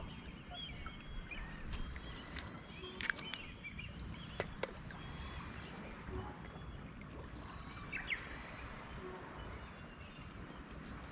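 Open-air ambience on a lake from a kayak: a steady low rush of wind and water, with small birds chirping on and off and a few sharp clicks in the first half.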